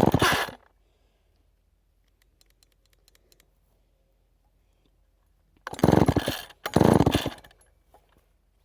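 Two-stroke chainsaw pull-started by its recoil cord: one pull at the start, then two more pulls a second apart about six seconds in, each turning the engine over without it catching. The tank holds only a little fuel.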